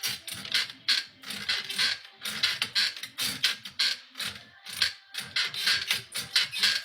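A bed creaking and squeaking in a steady, fast rhythm of roughly three squeaks a second, the sound of a couple having sex on a squeaky bed.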